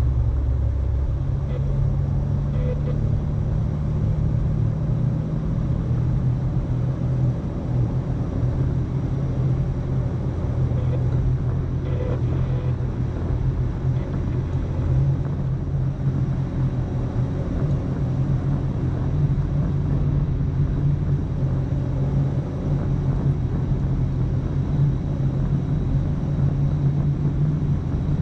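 Overland vehicle driving along a road: steady low engine and road rumble.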